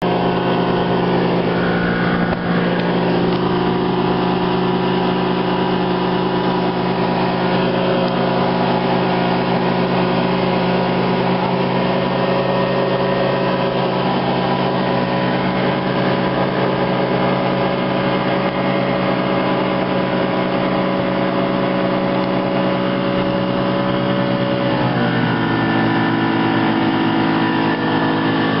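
An XP 150 outboard motor runs at speed while towing a tube, a steady engine drone over the rush of the wake. Near the end the engine note drops as the throttle is eased, then starts to climb again.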